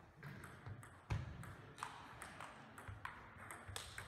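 Table tennis ball clicking off bats and table in a fast rally, about two to three hits a second, with a heavier thump about a second in.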